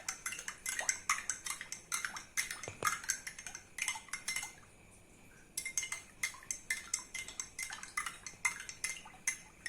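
A metal spoon stirring a liquid mixture briskly, clinking quickly and repeatedly against the sides of its container, with a pause of about a second around the middle.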